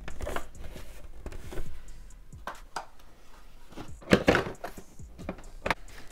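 Hard plastic parts of an indoor hydroponics unit knocking and clattering as the legs are handled and pushed against the reservoir, a few scattered knocks with a louder cluster about four seconds in.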